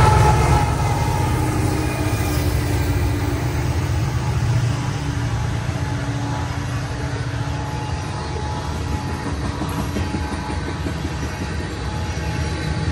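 A freight train passing close by: the diesel locomotives (an ET44AH, an SD70M and an AC44CW) are loud at first and fade within the first second or two. Then tank cars roll past with a steady rumble and the clatter of wheels over the rail joints.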